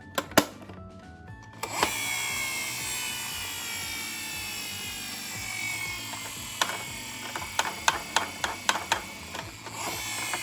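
Toy ambulance minicar running: a whirring whine that starts suddenly and slowly falls in pitch, joined near the end by a string of irregular sharp clicks.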